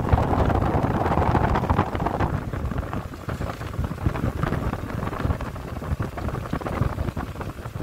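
Wind rushing over the microphone of a moving motorcycle, over a steady low rumble of engine and tyres on the road.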